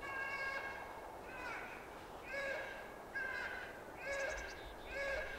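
Electronic predator caller playing a moose calf distress bleat on a loop: short nasal calls that bend down in pitch at the end, repeated about once a second, the first one longer.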